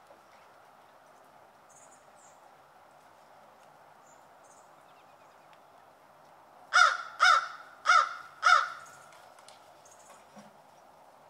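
American crow cawing four times in quick succession, each call about half a second apart, over a faint steady hiss.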